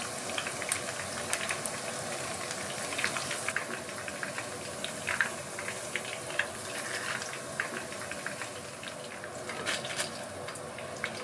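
Shrimp tempura deep-frying in hot oil in a frying pan: a steady sizzle with frequent crackles and pops.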